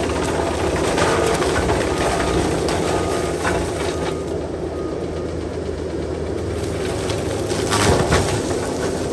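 Bobcat compact track loader's diesel engine running under load while its Angry Chipmunk disc mulcher head spins and grinds through brush and saplings. A couple of sharp cracks of wood breaking, about three and a half seconds in and near the end.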